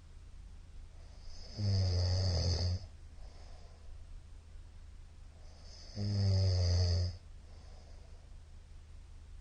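A middle-aged man snoring loudly in his sleep: two snores about a second long each, some four seconds apart, with fainter breathing between them.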